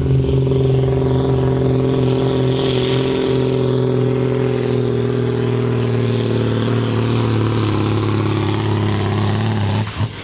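A John Deere tractor's diesel engine running flat out under the load of a pulling sled. Its note sags slowly lower as the pull goes on, then cuts off abruptly near the end.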